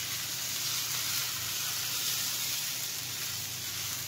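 Jalar appam batter sizzling steadily as it is piped in thin loops onto a hot, greased dosa tawa.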